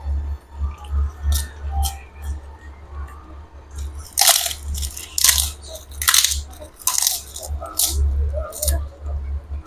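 Close chewing and crunching of kerupuk, Indonesian fried crackers. Softer sounds come first, then about six loud crisp crunches roughly a second apart in the second half.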